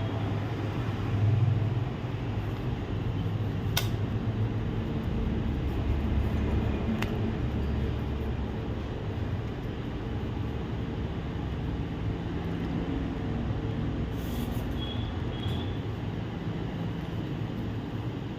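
Steady low background rumble, with two sharp clicks about four and seven seconds in.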